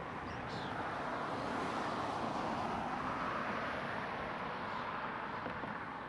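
Road traffic: a car passing on the road, its tyre and engine noise swelling to a peak in the middle and easing off near the end.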